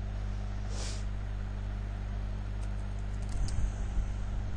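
Steady low electrical hum from the recording setup, with a brief hiss about a second in and a few faint computer-keyboard clicks past the middle as a password is typed and entered.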